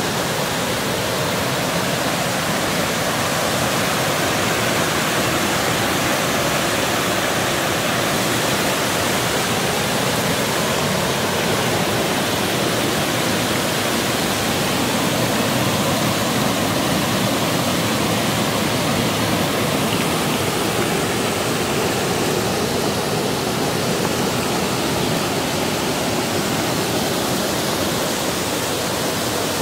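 Water pouring over a low river weir: a continuous, even rushing.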